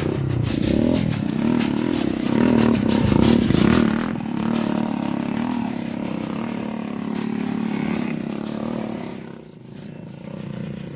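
Dirt bike engine running at low speed on a trail, revved unevenly with throttle blips in the first few seconds, then running steadier and dropping off briefly near the end.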